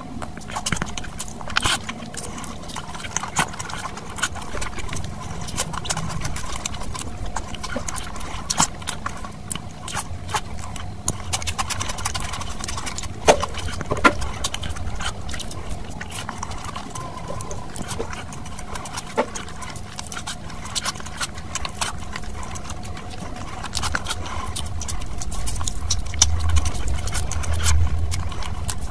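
Close-miked ASMR eating sounds: wet chewing and many sharp lip smacks as a person eats curry-soaked rice, egg and mutton by hand, growing louder and deeper near the end.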